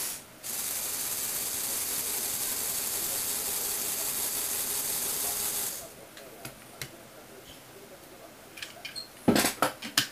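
Lego Technic gear train driven by a small electric motor, running with a steady whirring hiss. It stops about six seconds in, once the car platform has turned round. Sharp plastic clicks and clacks follow near the end as a model car is lifted off the Lego platform.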